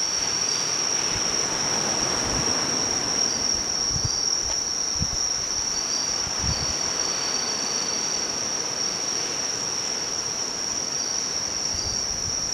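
A steady high-pitched chorus of night insects, with a second, fainter trill coming and going just below it, over a faint background hiss.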